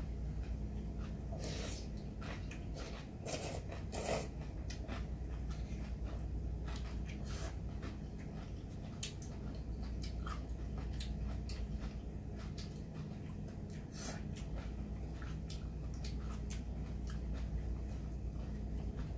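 Ramen noodles being slurped and chewed, with a few longer slurps among many small mouth and chopstick clicks against metal bowls, over a steady low hum.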